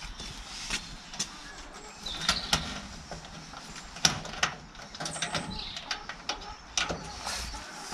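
Handling noises: a string of sharp clicks, knocks and rattles, such as a hutch or cage door and its fittings being worked, with a few short high chirps from the birds inside.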